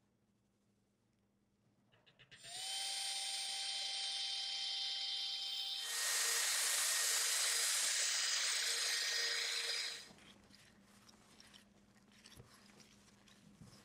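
Power drill spinning a mixing paddle, blending black pigment into epoxy resin. It spins up about two and a half seconds in with a slightly rising whine, gets louder and hissier about six seconds in, and stops suddenly about ten seconds in.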